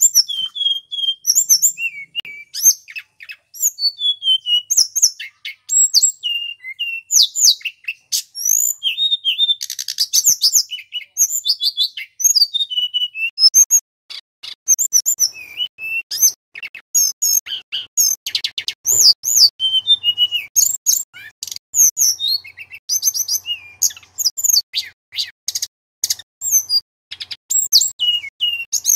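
Male tledekan gunung (hill blue flycatcher) singing on and on: a rapid, varied string of high whistles, slurred notes and trills, with a fast buzzy trill about ten seconds in.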